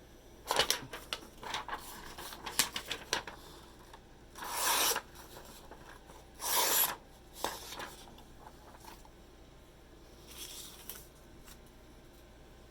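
A folding pocket knife being handled close to the microphone: a quick run of sharp clicks and taps, then a few longer rubbing swishes of hands sliding over it.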